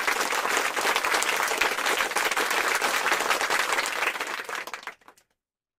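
Applause, a dense clatter of many hands clapping, that fades out about five seconds in and stops.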